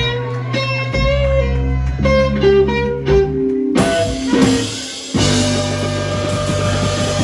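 Live blues band playing a slow blues: an electric guitar plays single-note lead lines over bass and drums. About four seconds in, cymbals crash and the full band swells behind the guitar.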